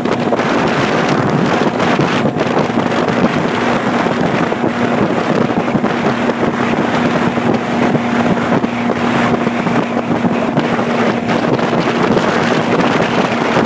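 Old ski boat's engine running steadily underway, a constant hum over a dense rushing noise, with wind buffeting the microphone.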